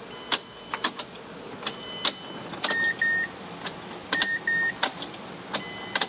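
Ignition key turned in a 2010 Mazda CX-7 that will not crank: a series of sharp clicks with two pairs of short dashboard warning chimes, and no starter or engine sound. The silence from the starter is the no-crank, no-start fault.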